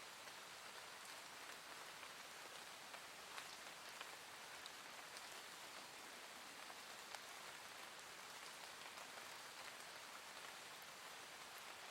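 Soft, gentle rain falling steadily and faintly, an even hiss scattered with small drop ticks.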